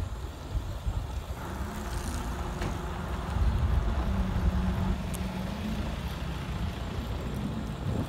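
Engine and road noise of a moving vehicle, heard from on board: a steady low hum with rumble, loudest from about three and a half to five seconds in.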